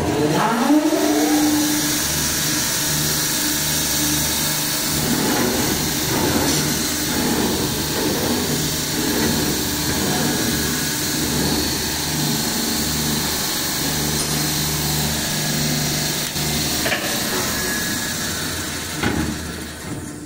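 Stainless-steel vertical band saw running with no cut: its motor comes up to speed with a rising whine over the first two seconds, then runs steadily with a low hum. It is switched off near the end and winds down.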